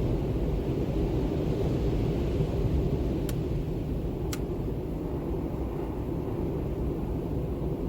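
Steady low wind rumble, an even deep noise with no change in strength. Two faint short ticks sound about three and four seconds in.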